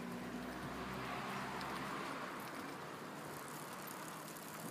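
A car driving past on the street: tyre and engine noise swells to a peak about two seconds in, then slowly eases off.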